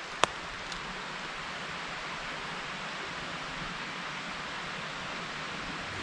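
Steady, even outdoor hiss in a wet forest, with one sharp click about a quarter second in.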